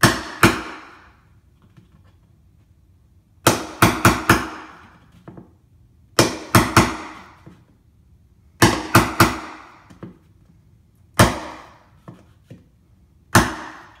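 Hammer blows on a chisel cutting into a wooden door jamb: about fourteen sharp, ringing strikes in small bursts of one to four, with pauses of a second or two between bursts.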